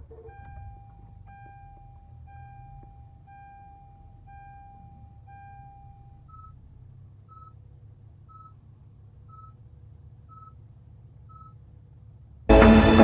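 A car's warning chime beeping about once a second, first as longer, lower tones, then, about six seconds in, as short, higher beeps. Music comes in loudly near the end.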